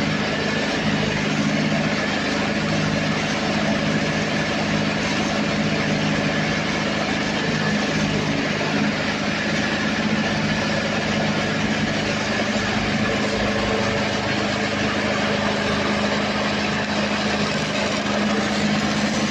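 Diesel engine of an engine-driven welding generator running steadily, a constant hum with a hiss over it.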